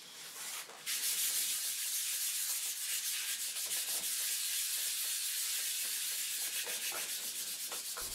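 Super-fine 2000-grade wet-and-dry abrasive paper rubbed by hand in quick strokes across the flat face of an aluminium heatsink, a steady hiss that starts about a second in: the mounting surface being polished smooth for fitting LED COBs.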